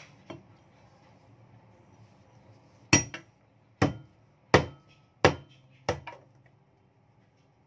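Cleaver coming down five times on garlic cloves on a thick wooden chopping board: sharp knocks about two-thirds of a second apart, each followed by a small rebound click.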